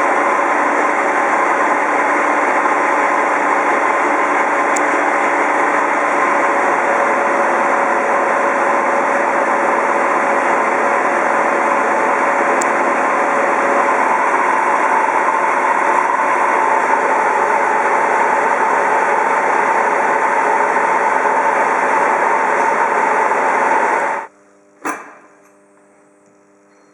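Horizontal boring mill milling metal parts: a loud, steady cutting and machine noise with a steady tone in it. It cuts off abruptly near the end, leaving a low hum and a single knock.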